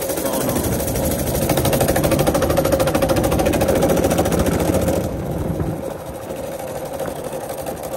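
Small single-cylinder minibike engine running under throttle, pulling harder for a few seconds, then easing off sharply about five seconds in.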